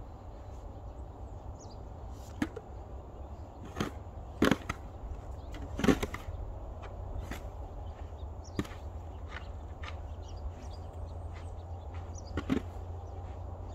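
A car moving slowly over snow-covered road: a steady low rumble, broken by scattered sharp knocks and cracks, the loudest two in the middle.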